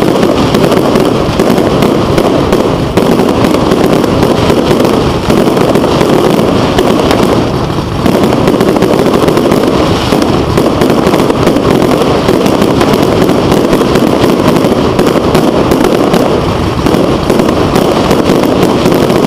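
Fireworks display: a dense, continuous barrage of aerial shells bursting, the bangs running together with hardly a gap, with a brief let-up about eight seconds in.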